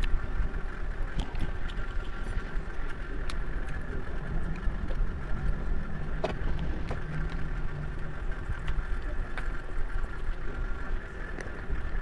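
Steady low background rumble, with a few light clicks and taps from dishes and a bowl being handled.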